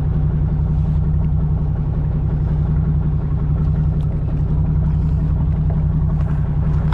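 Fishing boat's engine running steadily with a low, even drone.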